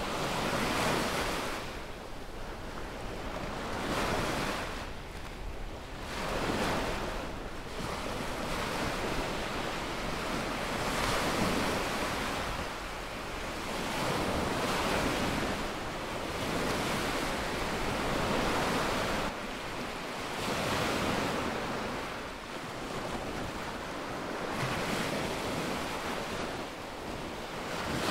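Small waves breaking at the shoreline and washing up a sandy beach, a surge of surf swelling and fading every few seconds.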